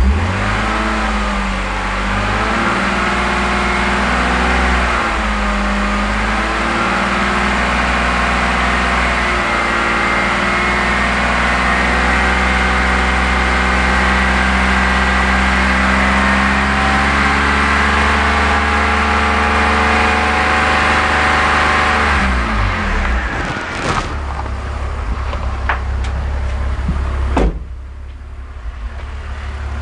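BMW E46 inline-six engine, running with a large vacuum leak from its disconnected valve-cover-to-oil-separator tube, revs up from idle to about 2,500 rpm. It holds there for about twenty seconds, then drops back to idle. Near the end there is a sharp thump, after which the sound is quieter.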